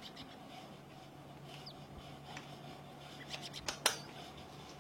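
Light plastic clicks and taps from handling a wireless keyboard, with a few sharper clicks near the end, over a faint steady hum.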